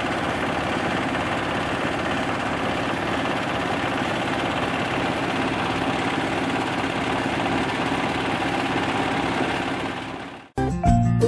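Engine-driven rice husk grinding mill running steadily as it grinds husks into fine bran, a dense, even mechanical noise from the engine and mill. It fades out about ten seconds in, and music starts just before the end.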